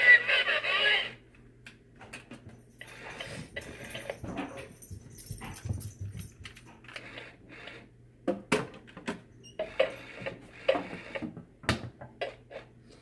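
A loud, wavering high-pitched squawk that ends about a second in, followed by rustling and sharp clicks as the plastic toy parrot is handled and opened up.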